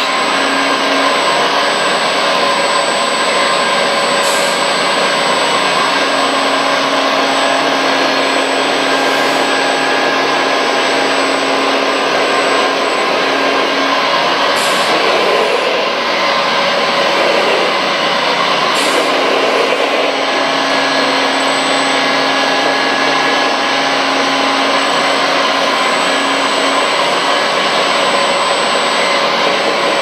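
Radio-controlled scale construction machines running: a steady whine of their electric motors and hydraulic pumps, with a low hum that cuts in and out every several seconds as the hydraulics work, such as the tipper truck raising and lowering its bed.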